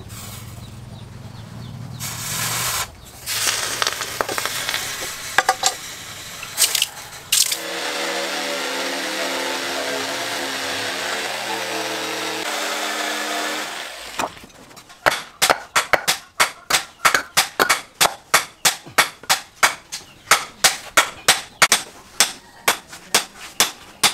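Electric jigsaw cutting a wooden board, its motor running with a steady whine for about six seconds in the middle. Near the start there are scratchy rubbing sounds with a few clicks, and after the saw stops comes a long, even run of sharp taps, about two to three a second.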